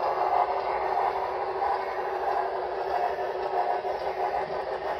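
HO scale model train cars rolling along the track: a steady, fine clatter of small wheels on the rails.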